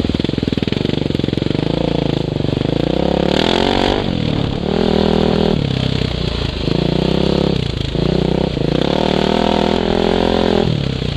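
Dirt bike engine pulling along a rough trail, the revs climbing and falling several times as the throttle is opened and shut, with short breaks in the sound between pulls.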